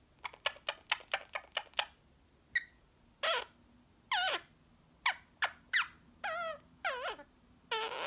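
Indian ringneck parrot chattering while drowsy at nap time. A quick run of short chirps comes first, then a string of short calls that each slide down in pitch.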